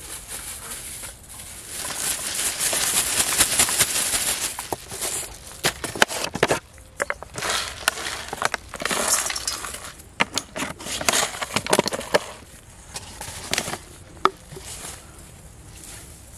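Plastic bag crinkling for a few seconds, then a run of sharp clicks and knocks as plastic bottles and a steel bowl are handled while bait is made up.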